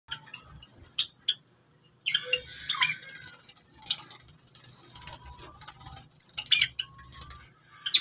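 Java sparrows bathing in a shallow bowl of water: irregular bursts of splashing and wing-flicked water, with short chirping calls mixed in.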